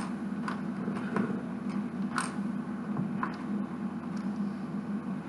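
Plastic Lego bricks being handled and fitted, giving a few scattered sharp clicks, the clearest about two seconds in, over a steady low hum.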